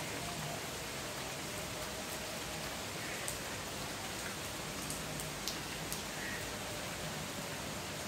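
Steady rain falling on a wet paved path, an even hiss, with a few louder drops ticking close by in the middle of the stretch.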